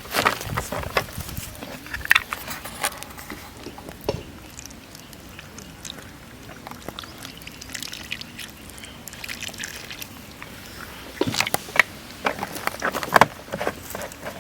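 Cooking oil being poured into a bowl of raw egg and spice batter, with sharp clicks and knocks clustered near the start and again near the end.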